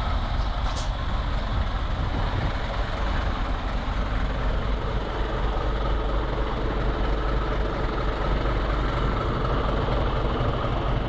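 Heavy truck diesel engine idling steadily, a low, even rumble.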